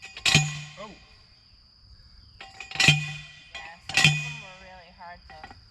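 Steel T-post being driven into the ground with a post driver: three ringing metal clangs, the second and third closer together.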